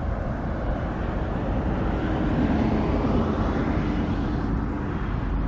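A vehicle passing by: a steady motor-and-road sound that grows louder about two seconds in and fades again near the end.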